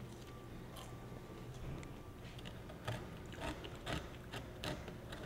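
Utility knife blade scratching and scoring through scooter grip tape in short, irregular strokes, starting about three seconds in.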